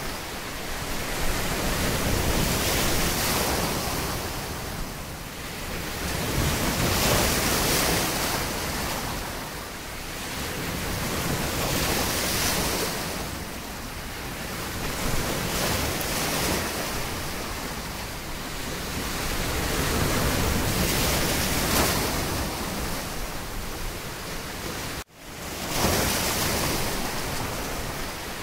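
Ocean waves washing in, a steady hiss that swells and fades about every five seconds, with a brief dropout near the end.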